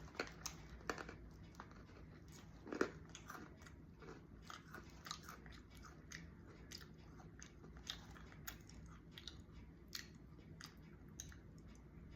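A person biting and chewing hard, crunchy chicken-onion flavoured snack chips close to the microphone: many irregular sharp crunches, with a louder bite about three seconds in. The snack is so hard that chewing it is like crunching ice.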